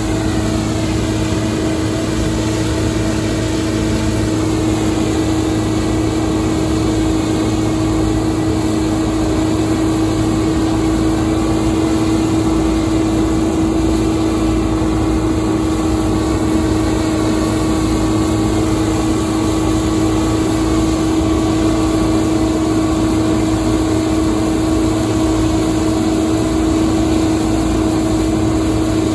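Case IH 2388 Axial Flow combine harvester working through a crop of oilseed rape: a steady drone of engine and threshing machinery with a strong, unchanging hum.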